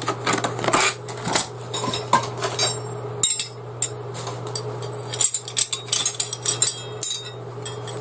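Metal tent pegs and steel rope stakes clinking and clanking against each other as they are handled: a rapid, irregular series of ringing metallic clinks, thinning out briefly about three seconds in.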